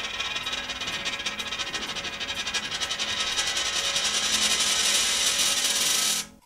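Experimental soundtrack of dense, fast-rattling noise over a few held tones. It grows louder and cuts off suddenly near the end.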